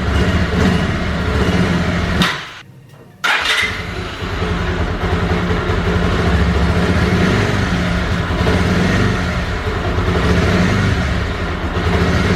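Bajaj Pulsar 180's single-cylinder four-stroke engine running steadily after its rebuild, the sound breaking off for about a second around two seconds in and then running steadily again.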